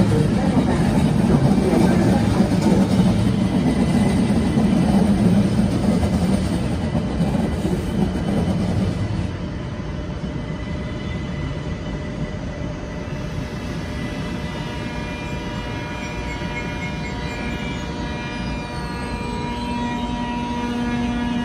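Electric passenger train running out of the station over the points, its rumble loud for the first several seconds and then dying away as it recedes. A few steady tones come in near the end.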